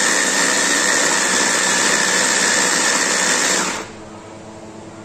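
Electric hand blender with a chopper bowl attachment running steadily with a high whine, puréeing tomatoes into a paste. The motor cuts off about four seconds in.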